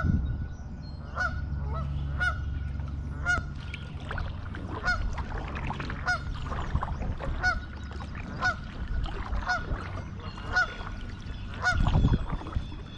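Geese honking over and over, about once or twice a second, over a low steady rumble. There is a short low thump near the end.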